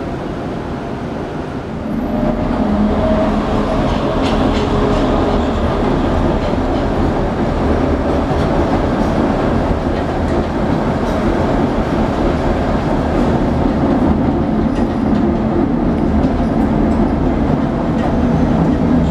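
Ride noise heard from inside a 1948 St. Louis-built PCC streetcar running along the track: a steady hum with steel wheels rolling on rail. It grows louder about two seconds in, with a few faint clicks along the way.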